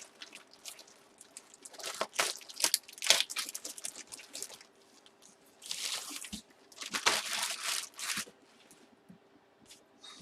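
Plastic packaging crinkling and crunching in several irregular bursts as a packaged item is unwrapped by hand.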